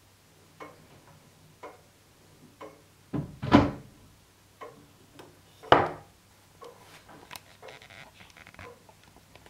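Deadbeat escapement of a Dent regulator longcase clock ticking about once a second. Two loud wooden knocks come about three and a half and five and a half seconds in, followed by lighter knocking and rattling, as the small viewing hatch on the mahogany case is handled and shut.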